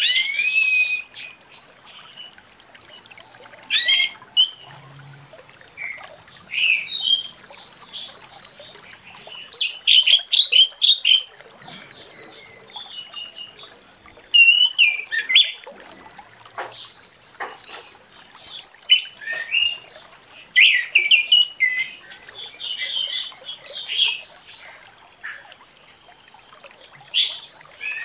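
Orange-headed thrush singing: a long run of quick, varied, high whistled and twittering phrases with short pauses between them.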